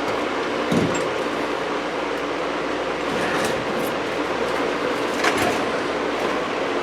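A steady rushing noise throughout, with a few light knocks and scrapes as Romex electrical cable is pushed through a drilled hole.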